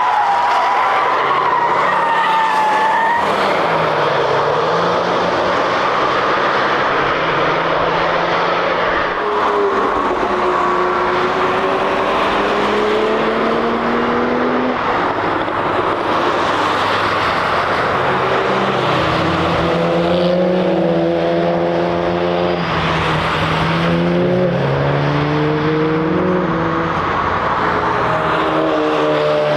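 Cars driven hard on a racing circuit, engines revving up through the gears with pitch steps at each shift, over steady tyre and road noise. Tyres squeal in the first few seconds.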